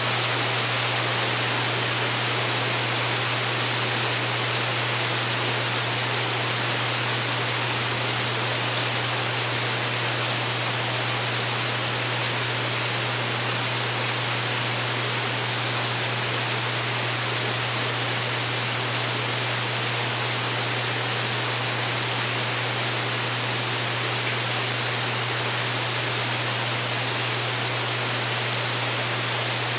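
Steady rain pattering on a porch roof, an even hiss with no breaks, over a steady low drone.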